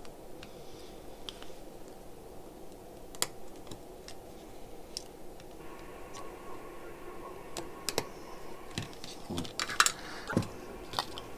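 Small, scattered clicks and taps of a soldering iron tip and a metal tool against a circuit board while a component is being desoldered, with a cluster of louder knocks near the end as the board is picked up and handled.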